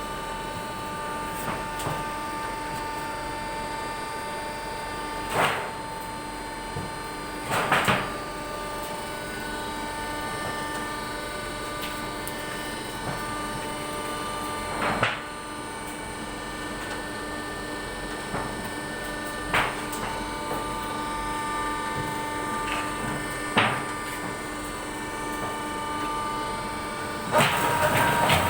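Galvalume roofing-sheet forming machine running with a steady motor hum, broken by several sharp metallic clanks spread a few seconds apart, and a louder burst of machine noise near the end.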